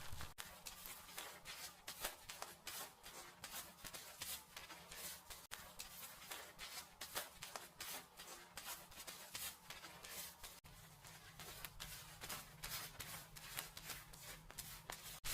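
Fingers scratching and rubbing through hair and scalp during a dry hair wash, many short scratchy strokes in quick, uneven succession.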